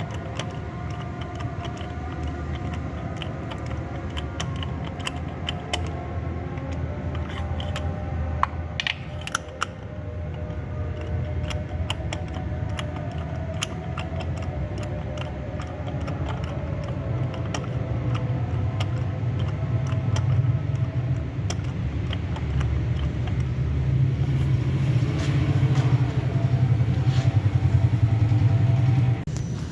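A steady low mechanical hum that grows louder in the second half and cuts off suddenly near the end, with light metal clinks about eight to nine seconds in.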